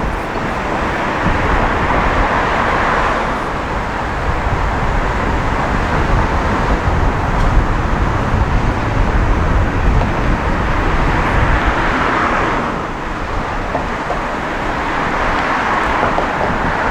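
Wind and road noise on a roof-mounted camera on a moving van: a heavy low rumble of wind on the microphone under a rushing noise of tyres and passing traffic that swells and eases several times.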